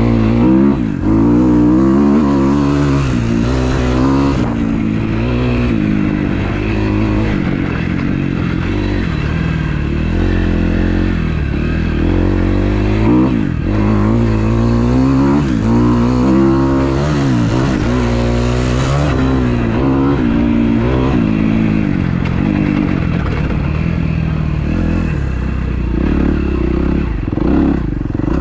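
Freshly rebuilt 2012 Kawasaki KX250F's four-stroke single-cylinder engine revving hard under riding. Its pitch climbs and drops many times as the bike accelerates, shifts and backs off.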